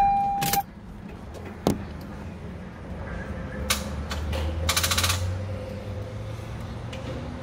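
Pickup truck failing to start on a drained battery: a short electronic chime, a sharp click, then a second or so of rapid clicking over a low hum. The owners put the breakdown down to a failed alternator.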